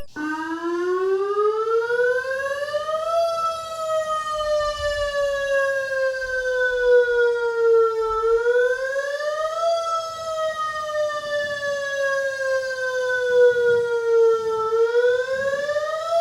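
Whelen WS-1000 tornado siren wailing. Its pitch climbs over the first three seconds, then slowly falls and quickly climbs again in cycles of about six seconds.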